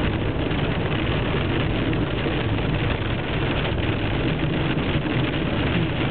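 Van's tyres running over a road covered in quarter-sized hailstones, a dense, steady rush of noise over the low rumble of the moving vehicle.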